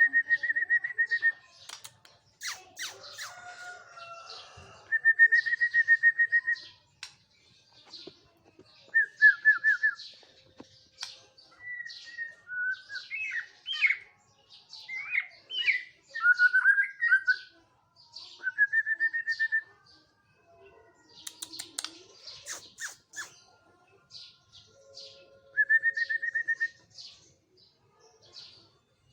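Murai songbird (Copsychus magpie-robin) singing: rapid trilled phrases on one pitch repeated every few seconds, with varied gliding whistled notes in the middle and many short sharp high chips between them.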